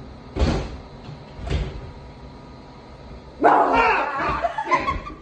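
Two dull thuds about a second apart, like knocks against a door or cupboard, then a person's loud shout about three and a half seconds in.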